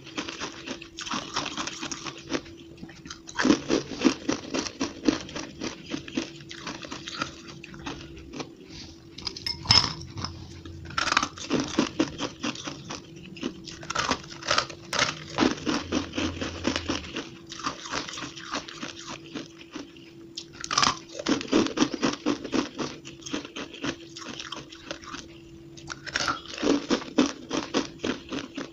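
Fluffy frozen ice chunks being bitten and chewed, crisp crunching in repeated rapid bursts with short pauses between bites, the audio sped up to double speed. A faint steady hum runs underneath.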